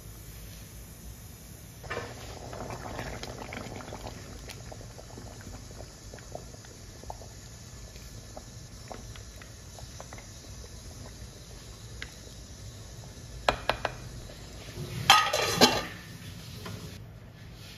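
Thick rice porridge bubbling in a pot while being stirred with a wooden spatula, with scattered small clicks. Near the end come a few sharp knocks and then a louder clatter of cookware, the loudest sound here.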